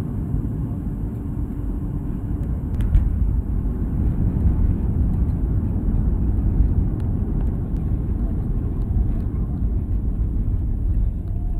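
Inside an airliner's cabin during the landing roll: a steady low rumble of the engines and of the wheels running along the runway.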